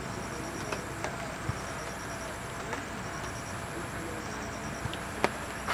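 Steady rushing outdoor background noise with scattered sharp ticks, the loudest about five seconds in, and a faint high chirp repeating in the distance.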